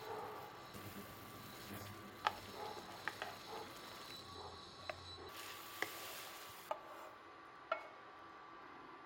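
Wooden spatula stirring noodles in broth in a metal wok, with a low sizzle and about seven sharp clicks as the spatula knocks against the pan.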